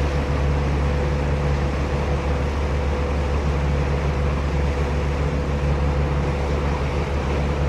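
A boat's motor running steadily while the boat is under way, a constant low drone with a faint steady hum, over an even rush of noise.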